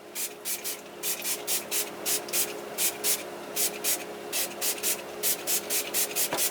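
Scrubbing a fridge shelf with cleaner, a quick run of short hissing strokes at about three to four a second, over a faint steady hum.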